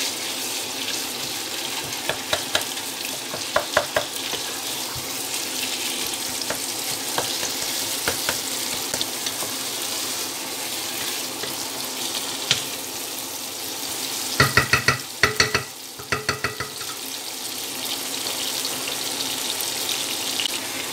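Minced meat frying in oil with onions and tomatoes in a pot: a steady sizzle while a wooden spatula stirs and turns it. Several sharp knocks with a short ring come in a cluster about two-thirds of the way through.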